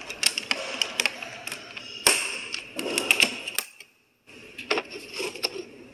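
Hard plastic tool cases being handled: a brake piston tool kit case shut and latched, then stacked cases shifted, giving scattered sharp clicks of latches and plastic knocking on plastic. The sound cuts out briefly about four seconds in.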